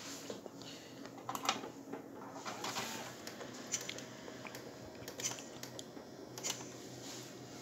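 A handful of short, sharp clicks and handling sounds, scattered and irregular, over a steady low hum from running computer equipment.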